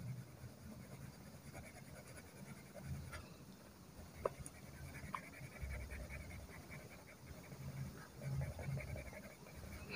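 Faint scratching of a pencil shading on paper, with one light tick about four seconds in.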